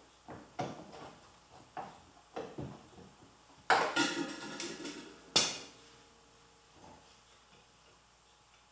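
Channel-lock pliers clanking and scraping against metal: light clicks at first, then a loud burst of metallic clanks with a ringing tone about four seconds in and one more sharp clank a second or so later.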